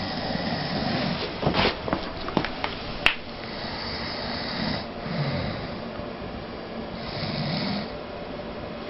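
A sleeping man snoring: several rough snores with breathy hiss between them, and a few short clicks in the first three seconds.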